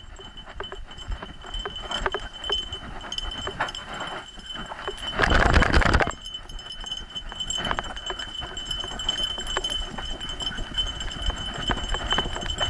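A dog running on a dirt trail, heard from an action camera strapped to its back: quick paw footfalls and metal jingling from its harness, with rubbing and knocking on the camera. About five seconds in, a loud rush of noise lasts just under a second.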